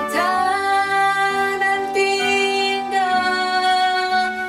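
A woman singing a slow Indonesian worship song over instrumental accompaniment, holding long notes.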